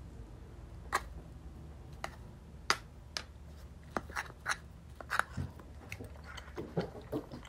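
Cutlery clicking and scraping against a plate while pancakes are cut and eaten: a dozen or so short, sharp taps at irregular intervals over a faint steady room hum.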